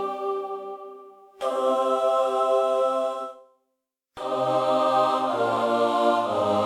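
A choir singing wordless sustained chords. One chord fades away, a second is held for about two seconds and fades to a brief silence, then a fuller chord with a low bass part comes in about four seconds in and shifts notes near the end.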